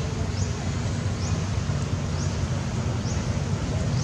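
Steady wind noise buffeting the microphone, heaviest in the low range, over outdoor ambience. A short, high, rising chirp repeats about once a second.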